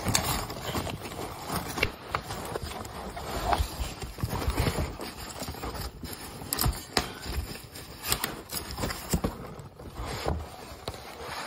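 Styrofoam packing foam and packaging being handled and moved close to the microphone: irregular rustling with many small knocks and bumps.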